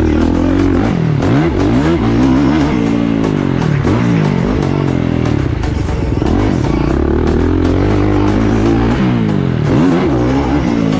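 Motocross dirt bike's engine revving hard and dropping off again and again as the rider accelerates, shifts and backs off between straights and turns, its pitch climbing and falling every second or two.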